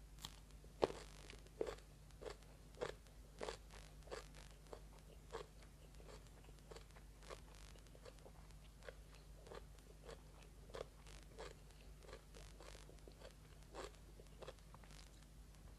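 Close-up crunching and chewing of a raw small round purple eggplant, with a sharp bite about a second in and then steady crunching chews, roughly three every two seconds.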